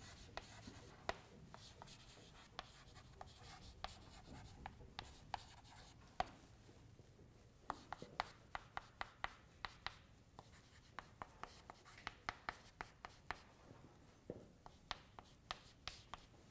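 Faint chalk tapping and scratching on a chalkboard as equations are written: a run of short, sharp taps that come thicker from about halfway through.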